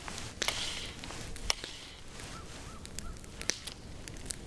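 Fly line being stripped in by hand through a fly rod's guides: a soft hiss near the start and a few sharp, separate clicks.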